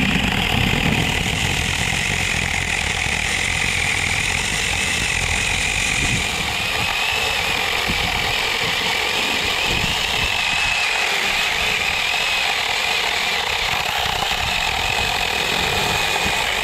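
Cordless 21-volt 4-inch mini chainsaw running under load as it cuts through a small log, its electric motor giving a steady, slightly wavering high whine. The chain keeps driving through the cut, a sign that the sprocket, now superglued to its shaft, no longer slips.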